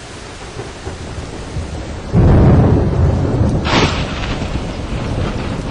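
Thunderstorm: rain hissing, then a clap of thunder breaks about two seconds in and rumbles on.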